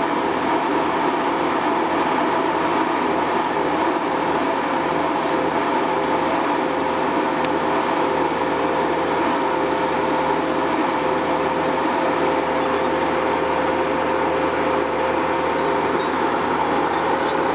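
Steady mechanical drone with a constant hum, as of an engine or machine running at an even speed, with a few faint high chirps near the end.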